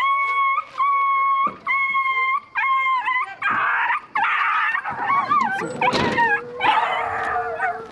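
A dog whining: a run of about five long cries at an even pitch, each under a second, then more broken, wavering whimpers and yelps. A sharp click about six seconds in as a van's door handle is pulled.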